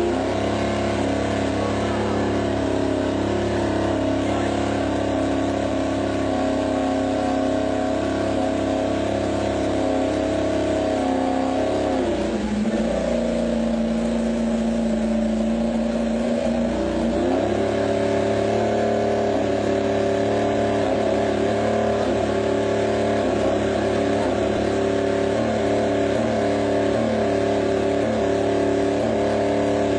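Yamaha YZR-M1 racing motorcycle's inline-four engine running steadily. About twelve seconds in the revs drop lower for several seconds, then come back up. In the last third the throttle is blipped in quick, repeated rises and falls of pitch.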